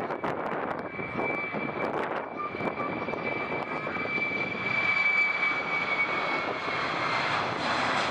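Boeing 767 airliner's twin turbofan engines at takeoff thrust during the takeoff roll. A steady jet roar carries a thin high whine that fades out about six and a half seconds in.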